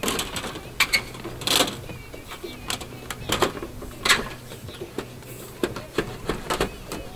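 Irregular clicks, taps and knocks of solar panel and flashing parts being handled and pressed into place on a roof.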